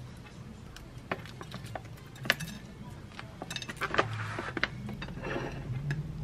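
Food being plated by hand: light clicks and taps on a ceramic plate, then a crinkling rustle about three and a half seconds in as garlic flakes are shaken from a plastic bag over the salad.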